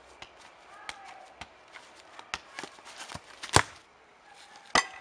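Scattered sharp clicks and knocks, quiet apart from a louder knock about three and a half seconds in and another near the end.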